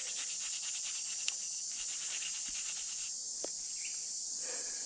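Insects chirring steadily in a dry field, cricket-like, with a rapid regular pulsing in the first couple of seconds. There are a couple of faint ticks, one about a second in and one about three and a half seconds in.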